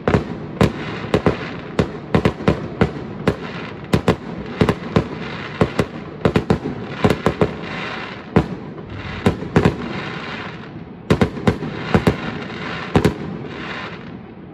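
Aerial firework shells bursting in quick, irregular succession: dozens of sharp bangs, often several a second, over a continuous crackling hiss. The bangs and the hiss die away near the end.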